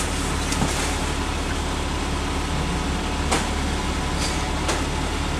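Off-road 4x4's engine idling steadily while the vehicle stands still, heard from inside the cab, with a few sharp clicks or knocks.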